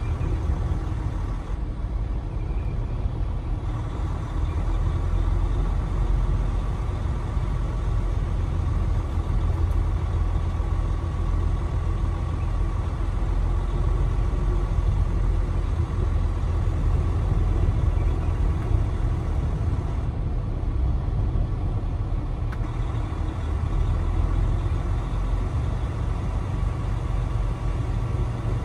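Steady low rumble of a Freightliner Cascadia semi truck's engine and road noise, heard from inside the cab as it rolls slowly in traffic.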